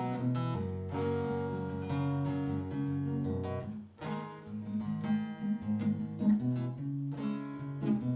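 Instrumental break of acoustic guitar strumming held chords, with a brief gap about four seconds in.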